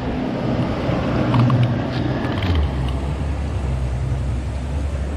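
A motor engine running with a steady low drone that drops to a deeper pitch about two and a half seconds in, with a few faint clicks.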